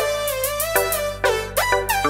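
Background music: a melody of short plucked notes over held bass notes, in a steady beat.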